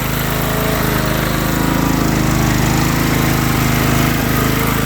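Craftsman riding lawnmower's engine running steadily, warming up shortly after a cold start.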